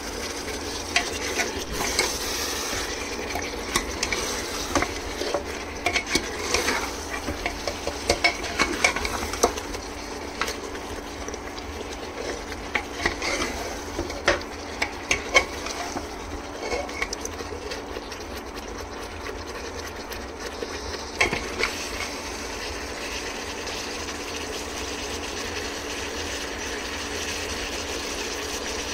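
Mutton frying in oil in a pot, stirred with a spoon that knocks and scrapes against the pot for about the first twenty seconds, then a steady sizzle alone. This is the frying stage where the meat is cooked until the oil separates, as it is not yet properly fried.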